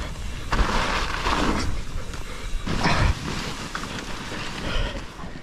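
Propain Spindrift CF mountain bike ridden down a snowy trail: its tyres hiss through the snow and the bike rattles, with a heavy thud about three seconds in, like landing off a small jump.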